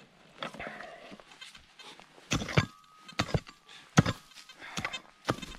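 A hand rake strikes and scrapes into dry, stony soil and grass in a string of sharp knocks. A faint steady beep, typical of a metal detector sounding on a target, runs through the second half.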